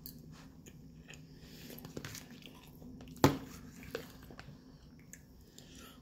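Close-up eating sounds: chewing and mouth smacks, with a fork scraping and tapping in a plastic food container. A sharp click a little over three seconds in is the loudest sound, with smaller clicks about a second before and after.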